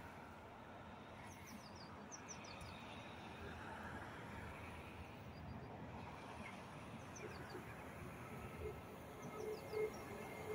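Faint open-air background rumble with small birds chirping a few times. In the last couple of seconds a steady tone comes in and the sound swells as an electric passenger train approaches along the line.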